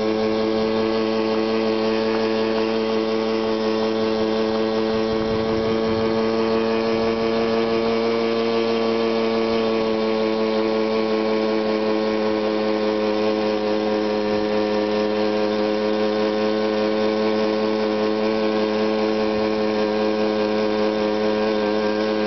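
Tunturi City 50cc two-stroke moped engine running at a steady speed under way, its pitch held nearly constant.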